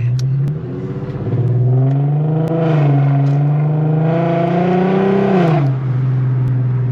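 Infiniti Q50's engine, loud through an exhaust with test pipes and a muffler delete, pulling under throttle. The pitch rises over the first second or so, holds steady for a few seconds, then drops near the end as the throttle comes off.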